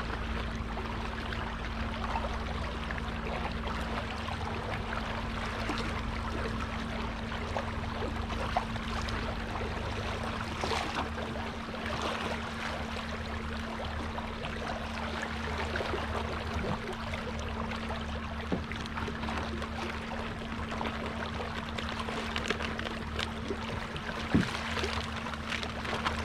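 Kayak under way on an electric motor: water splashing and washing along the hull, over a steady low motor hum.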